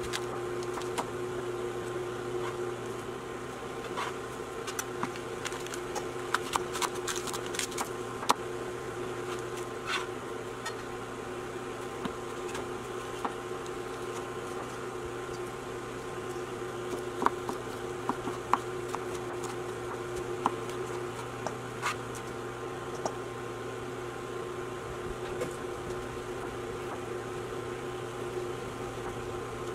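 Steady hum with a few constant tones from a portable cooktop heating a pot of boiling water. Scattered sharp clicks of a knife slicing vegetables against the countertop come in small clusters.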